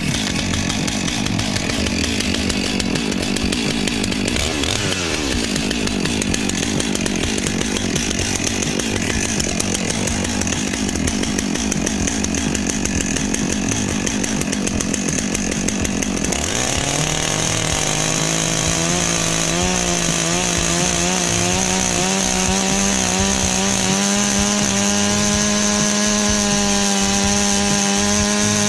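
Stihl chainsaw with crosscut chain, mounted upright in a Granberg mini mill, running under load as it rips lengthwise along a tamarack log. About sixteen seconds in its note turns clearer and climbs slowly in pitch.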